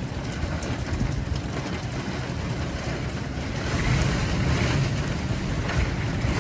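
Car driving in the rain: a steady low rumble of engine and tyres on the road under an even hiss of rain.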